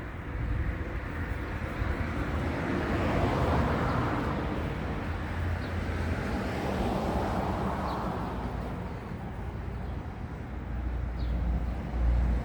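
Cars passing on the road: tyre and engine noise that swells and fades twice.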